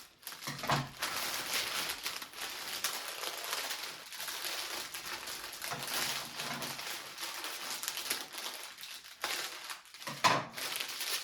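Wrapping on a flower bouquet crinkling and rustling steadily as it is opened by hand, with a few louder crackles near the start and near the end.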